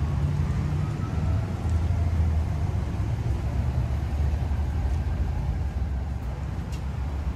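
Ambulance engine idling: a low, steady rumble.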